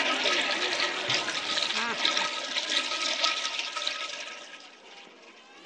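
Toilet-flush sound effect: a loud rush of water that starts suddenly and fades away over about four seconds.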